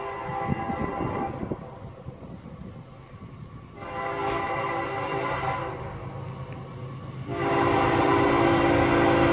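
Horn of an approaching CSX freight locomotive sounding for a grade crossing, a chord of several notes blown in blasts: one trailing off in the first second or so, another about four seconds in, and a long, louder one starting about seven seconds in. A low rumble runs underneath.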